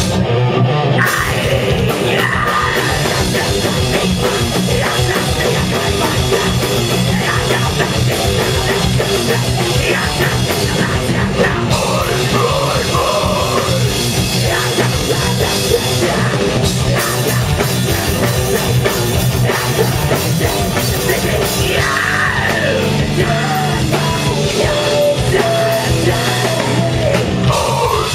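Live heavy rock band playing loudly, with distorted guitars, a pounding drum kit and some shouted vocals.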